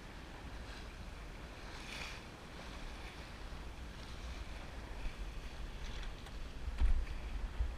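Water rushing and splashing along the hull of a Drabant 27 sailboat under sail, with wind buffeting the microphone as a steady low rumble. A single thump comes about a second before the end.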